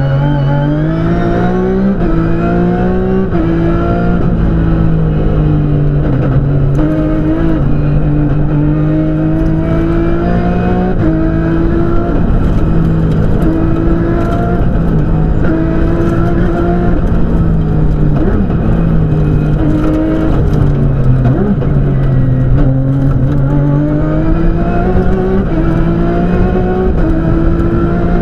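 Porsche 997 GT3 rally car's flat-six engine heard from inside the cabin under hard driving. Its pitch climbs in the first couple of seconds, then rises and falls again and again as the car accelerates and lifts.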